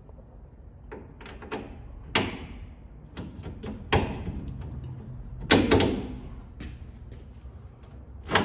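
Metal clanking and knocking as a steel bolt is worked through a leaf spring eye's bushing and the frame hanger. There is a series of sharp knocks, the loudest about two, four and five and a half seconds in and again near the end.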